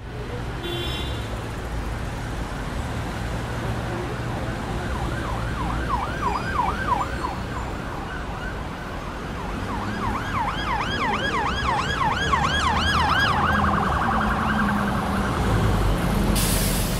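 An electronic siren yelping, its pitch sweeping up and down about four times a second, in two spells, the second one louder. It then switches to a faster, flatter warble near the end, over a steady low rumble of traffic.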